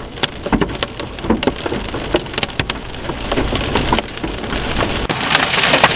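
Large hailstones pelting a car's roof and windows, heard from inside the car: many irregular sharp knocks over a steady hiss of rain. The hits grow denser and louder near the end.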